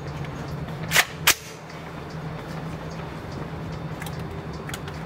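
Two rifle shots about a third of a second apart, about a second in, from a bufferless Foxtrot Mike FM-15 Gen 2 AR-15-style rifle fired in an indoor range, over a steady low hum.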